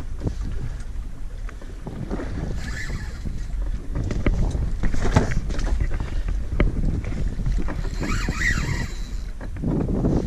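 Wind buffeting the microphone over the low rumble of a boat on open sea, with scattered small clicks and knocks from the rod and reel during a fight with a heavy fish. A brighter hiss swells briefly near the end.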